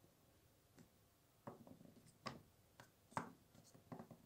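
Near silence, broken by a few faint, short clicks and taps.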